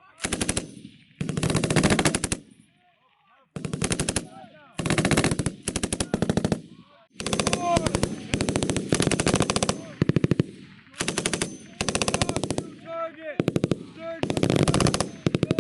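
Machine guns firing bursts of automatic fire, one burst after another with short pauses between them and a brief lull about three seconds in.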